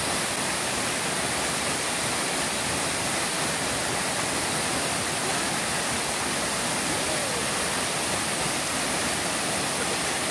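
Steady rush of a waterfall plunging into a pool.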